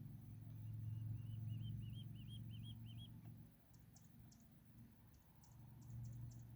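A bird calling: a run of short, arched notes that gets louder and slightly quicker over about two and a half seconds, followed by faint, quick high ticks. A low steady hum lies underneath.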